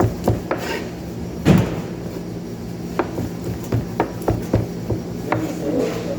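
Grilled chicken being chopped with a heavy knife or cleaver on a board: irregular sharp chopping knocks, the heaviest blow about one and a half seconds in, over a steady low hum.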